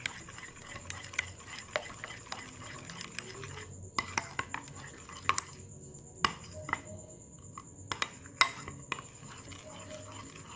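A spoon stirring honey into the pineapple syrup, clinking irregularly against the sides of the container.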